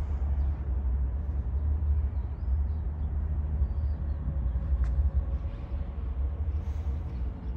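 A loud, fluttering low rumble that starts and stops abruptly, with a faint wash of room noise above it and one small click about five seconds in.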